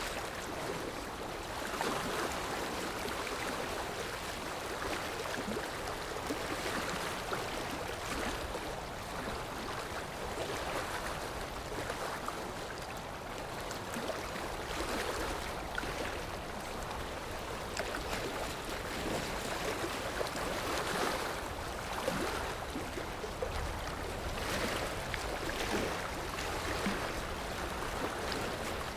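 Sea waves washing ashore: a steady rush of surf that swells and ebbs every few seconds.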